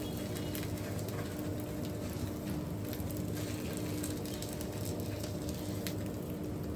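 Eggs frying in oil in a non-stick pan: a steady sizzle with scattered crackles and pops, over a faint steady hum.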